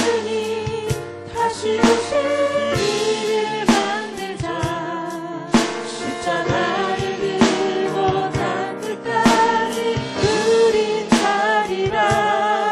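Live contemporary Korean worship music: a praise team of several singers singing a praise song together over a band with drums.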